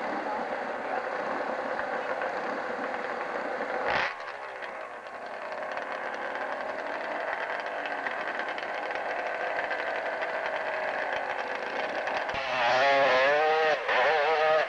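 Dirt bike engine running steadily, with a sharp click about four seconds in, then revving up and down hard over the last couple of seconds as the bike sets off up the slope.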